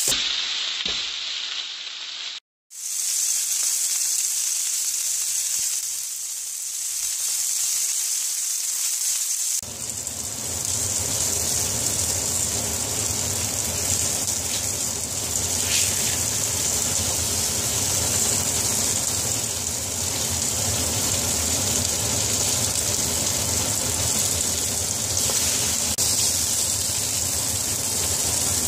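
Chicken thighs frying skin-side down on a hot griddle: a steady sizzle. It drops out briefly about two and a half seconds in, and from about ten seconds in it comes back fuller and heavier.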